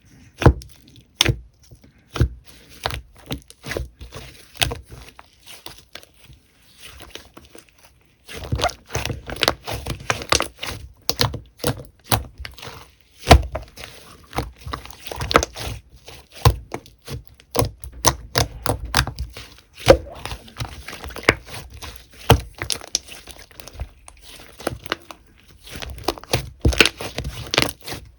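Slime being squished and poked by hand, a run of sticky clicks, pops and snaps. They come sparsely at first and grow dense after about eight seconds, with a few louder snaps among them.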